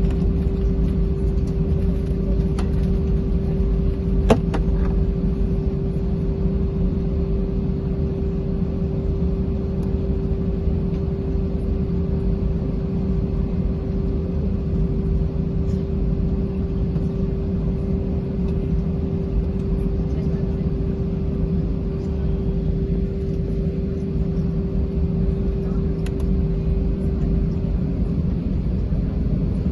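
Cabin noise of an Airbus A320 on the ground after landing: a steady low rumble with a steady hum. Two short clicks about two and a half and four seconds in.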